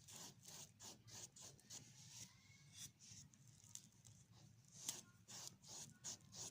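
Faint paintbrush strokes brushing acrylic paint onto canvas: a quick, uneven run of short strokes, a few each second.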